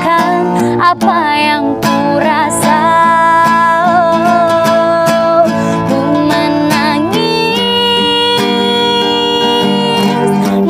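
A woman singing long held notes with a strong vibrato, accompanied by a strummed acoustic guitar. About seven seconds in she climbs to a higher note and holds it.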